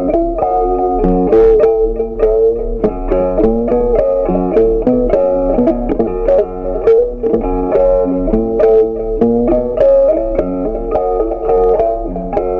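Background music: a guitar playing a plucked melody in a steady stream of notes.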